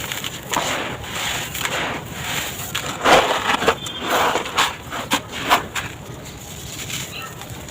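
Dry sand-cement blocks being crumbled in a tub: gritty crunching, louder in the middle with a run of sharp snaps, then quieter.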